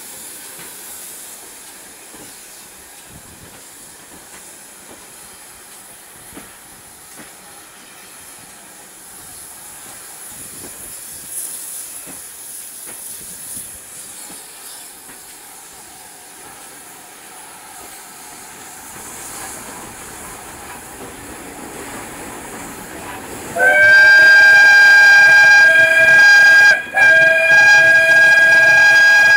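Steam hiss and quiet rolling of GWR 9400-class pannier tank 9466 as it moves off slowly. Near the end its steam whistle blows loud and steady, a long blast with one very short break, sounded at a whistle board.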